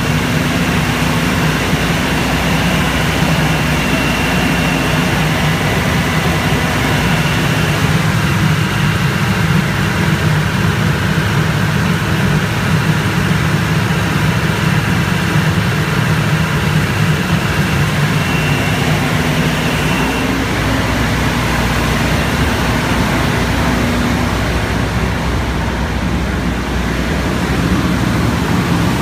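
Aircraft ground air-conditioning unit running steadily: an even, loud low machine hum with a faint high tone on top.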